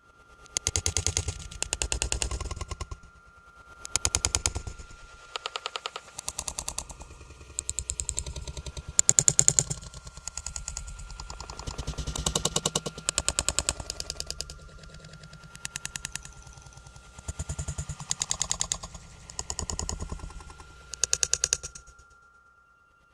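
A rattling clatter, given as a scary night-time sound effect: bursts of very rapid clicking knocks, each lasting from half a second to about a second and a half, coming again and again at irregular gaps. A faint steady high tone runs beneath them.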